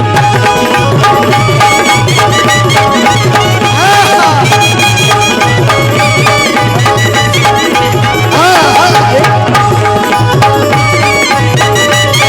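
Instrumental music interlude: tabla keeping a steady rhythm under held melody notes, with a couple of sliding phrases.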